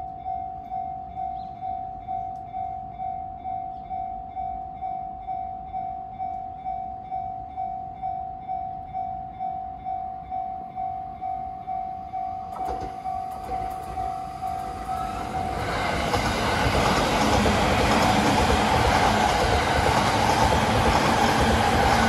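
A Japanese level crossing's electronic warning bell rings a single steady tone about twice a second and stops about fifteen seconds in. From about twelve seconds in, a Rinkai Line 70-000 series electric commuter train grows louder as it approaches, then passes close by at speed for the rest.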